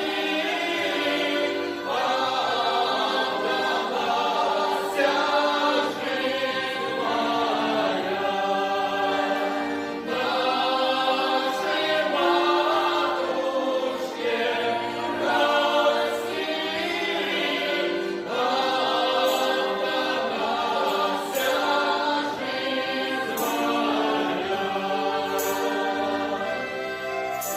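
A folk ensemble's choir, several voices singing a song together in long phrases.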